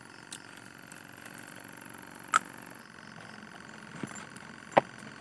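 A steady hum from the small air pump ("blower") that keeps the live fishing bait alive, with a few sharp clicks and clinks as small fishing tackle is handled, two of them louder, about two and a half and about five seconds in.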